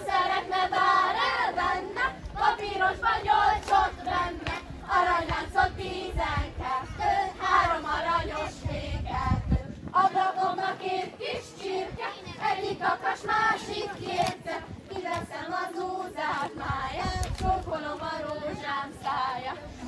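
A group of children singing a folk song together, with dull low thuds underneath most of the time that stop for a while about halfway through.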